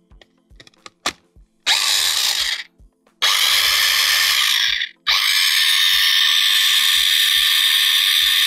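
Electric mini chopper with a press-down top blending a sauce. After a few light clicks, the motor runs in two short pulses of about one and one and a half seconds, then runs steadily from about five seconds in.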